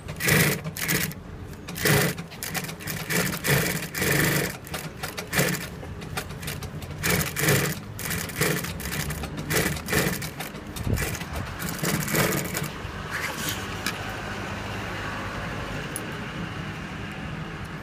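Single-needle cylinder-bed lockstitch sewing machine with unison feed stitching in short, irregular runs, starting and stopping for about the first twelve seconds. After that a steady, quieter sound runs to the end.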